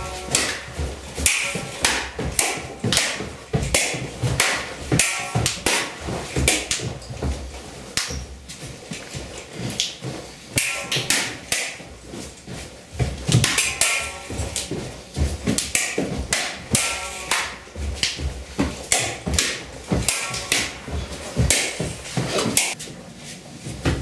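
Tulwar sword blades clashing against each other and striking round shields, in quick irregular runs of several blows a second, some ringing briefly.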